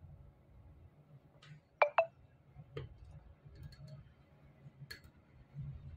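A 3.5 mm audio jack plug is handled and set down on the work surface: a sharp double clink about two seconds in, then a few fainter clicks, over a faint low hum.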